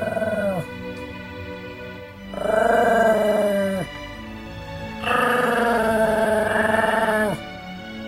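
A small dog howling: long drawn-out howls that each drop in pitch as they trail off, the first ending about half a second in and two more following, over background music.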